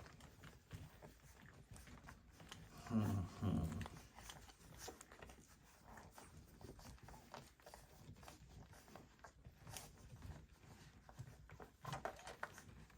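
A dog's low, pitched vocal sound, given twice in quick succession about three seconds in and once more, fainter, near the end, over faint rustling and scuffling of the puppies moving about.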